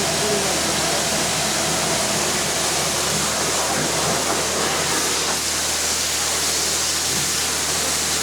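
Pressure washer spraying: a steady hiss of high-pressure water, with the constant low hum of the washer's pump motor underneath.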